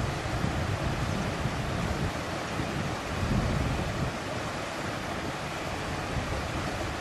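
Shallow river running over stones in a steady rush, with wind on the microphone adding low rumbling swells now and then, strongest about three seconds in.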